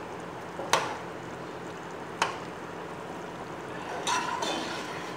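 Rice and chicken pieces simmering in stock in a cooking pot, stirred with a metal spoon that knocks sharply against the pot twice, about a second in and again a second and a half later.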